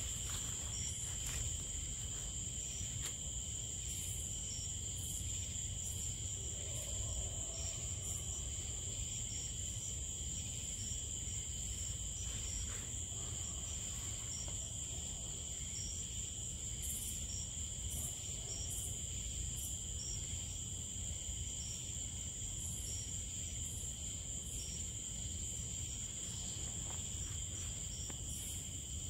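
A steady chorus of crickets and other night insects, holding two constant high-pitched drones with faint ticks between them, over a low steady background rumble.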